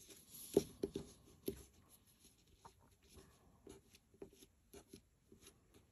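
Fingers rolling a small tuft of wool into a sausage shape on a paper sheet: soft rustling and rubbing with scattered light taps, a little stronger in the first couple of seconds.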